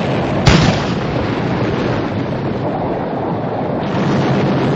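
Battle-scene gunfire: a single sharp shot about half a second in, over a steady, noisy din of battle.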